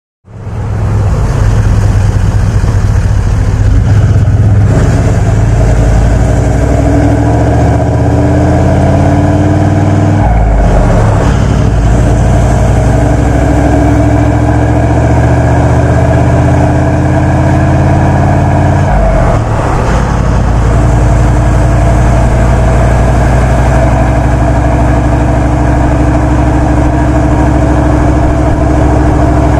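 Toyota Land Cruiser 79 Series' turbo-diesel V8 breathing through a twin 3-inch stainless mandrel-bent exhaust while driving: the engine note climbs, falls sharply about ten seconds in and again near twenty seconds as it changes up, then holds steady at cruise.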